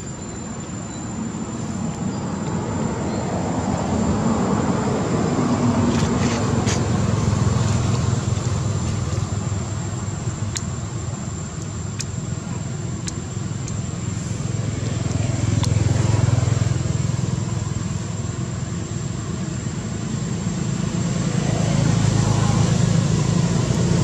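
Outdoor background noise: a low rumble that swells and fades several times, like passing traffic or wind, under a thin steady high whine, with a few faint clicks.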